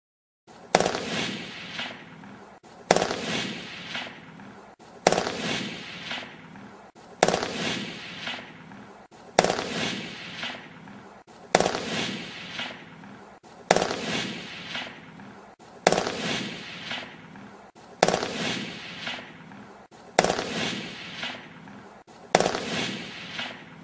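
FAMAS assault rifle firing, a sharp report about every two seconds, each trailing off in a long echoing tail. The repeats begin about half a second in.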